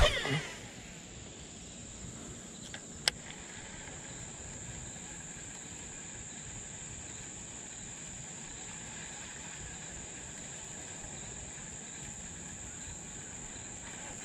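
Insects chirring steadily in a high, even drone. Right at the start a fishing rod swishes through a cast, and about three seconds in there is one sharp click.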